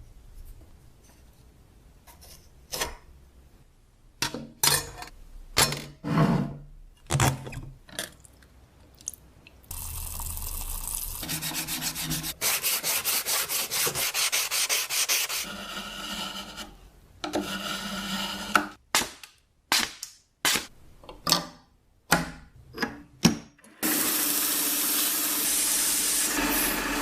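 Rusted metal of a meat cutter being scraped, sanded and rubbed to take off the rust: short separate strokes and knocks at first, then longer spells of steady abrasive sanding noise.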